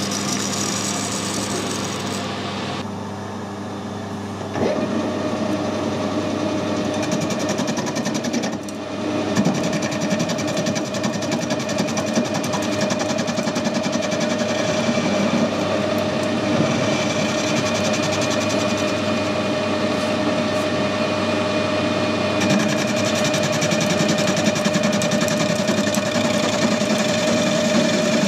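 Metal lathe running with its turning tool taking a facing cut across a spinning metal blank: a steady machine hum, joined about five seconds in by a steady whine that holds to the end.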